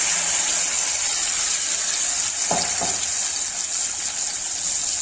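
Cucumber-and-curd purée sizzling steadily in a pan of hot oil with cumin seeds, a loud, even hiss of the wet purée frying.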